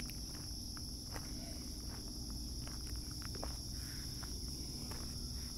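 Steady high-pitched chorus of singing insects, with soft scattered footsteps.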